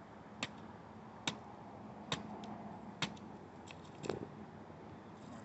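A rock striking a steelhead's head to kill it: five sharp, evenly spaced knocks, a little under one a second.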